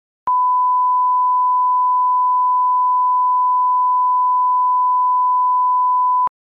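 1 kHz reference test tone, the line-up tone that goes with colour bars for setting audio levels. It is one steady pure beep held about six seconds, starting and stopping abruptly with a faint click at each end.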